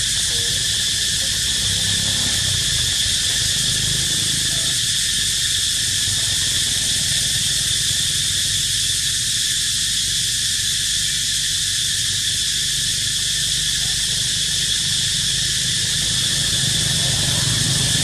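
A chorus of cicadas calling, a loud, steady, high buzz that holds without a break, over a low rumble.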